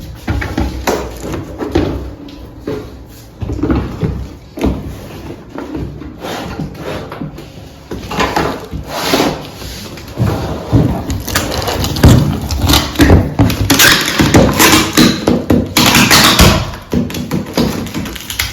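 A cardboard box being opened by hand: irregular knocks and scrapes of the box with packing tape being peeled and torn, busier and louder in the second half.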